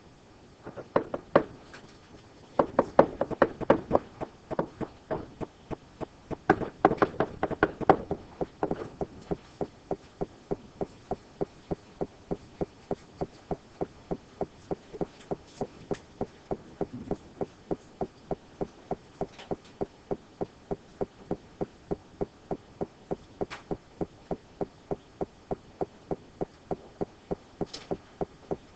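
Steady, rapid ticking, about two or three even ticks a second, with louder irregular knocks and clatter during the first eight seconds or so.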